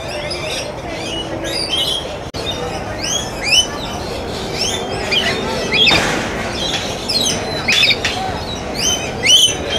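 A flock of birds chirping and squawking, many short rising calls overlapping in quick succession.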